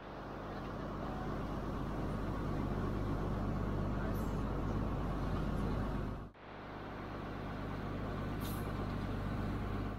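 A longboat's engine running with a steady low drone under the rush of river water along the hull. The sound drops out briefly about six seconds in, then carries on the same.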